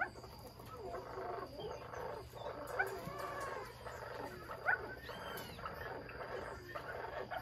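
A male golden pheasant gives a short, sharp rising call right at the start. Then comes a dense run of overlapping bird calls from the aviaries.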